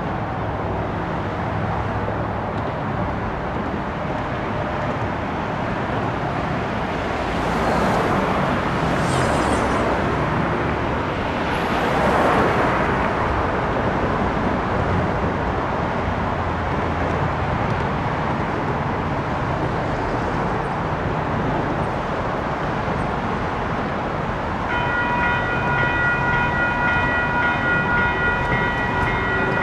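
Steady road-traffic noise with vehicles passing about eight and twelve seconds in. About twenty-five seconds in, the railroad crossing's electronic bell starts ringing in rapid repeated strikes, the crossing warning activating for an approaching train.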